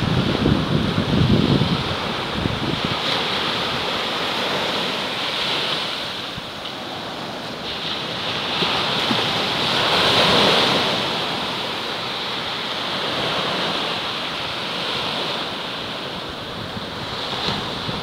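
Small knee-to-thigh-high waves breaking and washing up on a sandy beach. The surf rises to a peak about ten seconds in. A low wind rumble on the microphone is heard in the first two seconds.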